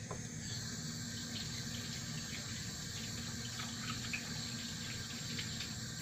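Kitchen faucet running in a steady stream while hands are washed under it.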